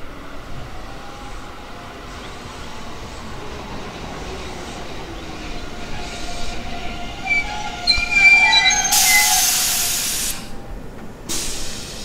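Keihan electric commuter train running slowly along the platform, its wheels and brakes squealing in several high tones from about six seconds in. A loud burst of compressed-air hiss follows about nine seconds in, with a shorter one near the end.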